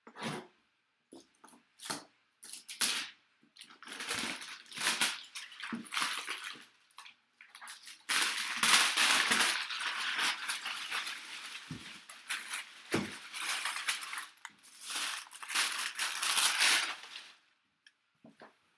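A cardboard helmet box being opened and unpacked by hand: scattered taps, scrapes and rips for several seconds, then about nine seconds of continuous crinkling and rustling of packing material that stops shortly before the end.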